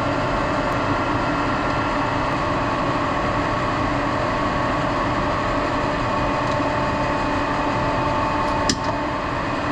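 Steady industrial machinery hum with several constant tones and fan-like noise, and one sharp click near the end.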